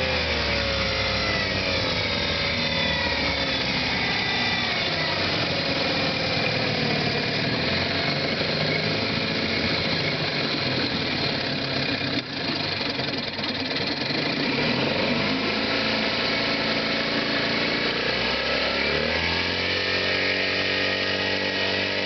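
1956 Scott-Atwater-built Hiawatha 5 hp two-stroke outboard motor running on the boat. Its speed drops in the first few seconds, there is a brief dip about twelve seconds in, and it speeds up again in two steps near the end.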